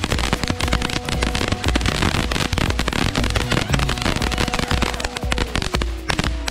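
Ground fountain fireworks spraying sparks, a dense steady crackle and hiss, over background music with a steady beat.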